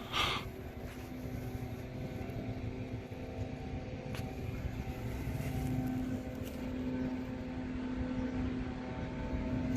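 A vehicle engine idling steadily: a constant low hum and rumble, with a short hiss at the very start.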